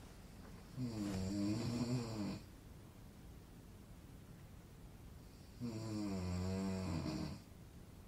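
A man snoring: two long, rasping snores about five seconds apart, each lasting under two seconds.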